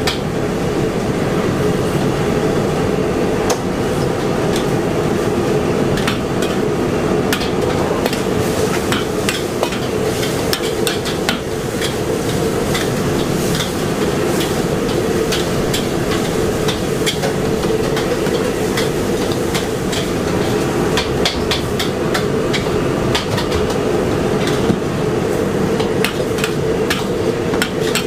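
A metal spatula repeatedly scraping and clanking against a steel wok as noodles are stir-fried, many sharp knocks in an uneven rhythm, over a steady roar from the wok's gas burner.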